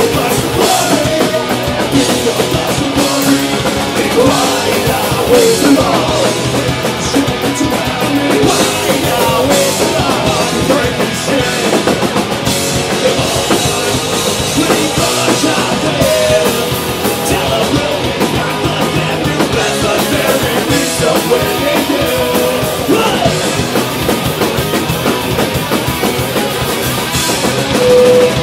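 Punk rock band playing live: distorted electric guitars, bass guitar and a drum kit, with a vocalist shouting and singing into a microphone.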